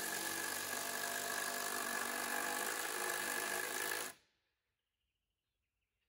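Handheld power tool driving a fastener into a timber veranda beam, running steadily with a high whine for about four seconds, then stopping suddenly.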